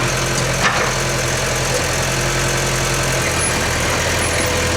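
Mitsubishi BD2-F small crawler dozer's diesel engine running steadily, with a single sharp click under a second in and a change in its low note about three seconds in.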